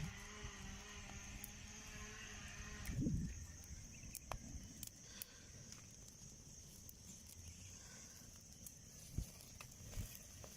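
Faint outdoor ambience: a steady high chirring of crickets throughout, with a distant motor hum that stops about three seconds in, followed by a few light clicks and handling sounds.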